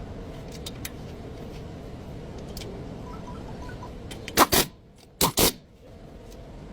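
Renault car with a steady running rumble and light clicks, broken a little past the middle by two pairs of loud, sharp knocks, which would be the front brake noise.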